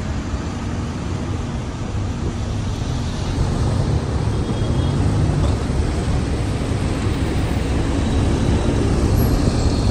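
Road traffic on a wet street heard from a moving car through an open window: a steady rumble of engines and tyres on wet pavement, growing slowly louder.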